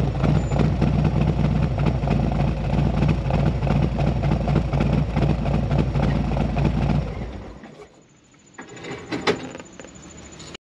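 Harley-Davidson Road Glide's Milwaukee-Eight V-twin, fitted with a Fueling Reaper 465 cam, idling through a Khrome Werks Dominator 2-into-1 exhaust, then dying away about seven seconds in as the engine is switched off. A few faint clicks follow.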